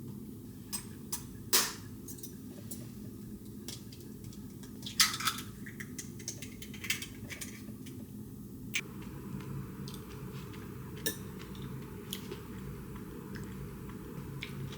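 Kitchenware being handled: scattered sharp knocks and clinks, with two louder ones about a second and a half in and about five seconds in, over a low steady hum.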